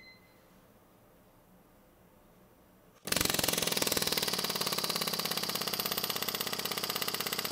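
Snap-On PH3050B .401-shank pneumatic air hammer starting about three seconds in and running a fast, even hammering against a steel test fixture, its trigger feathered so the hits build up in force.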